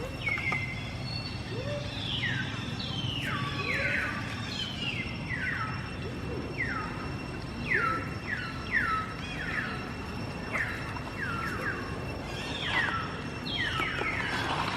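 Baby monkey squealing: a string of high calls, each sliding steeply down in pitch, about one or two a second, with fainter lower calls between them.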